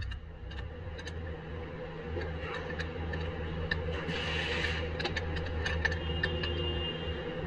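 Scattered light metallic clicks and ticks of tools and parts being handled at a car's suspension knuckle, with a brief scrape about four seconds in, over a steady low hum.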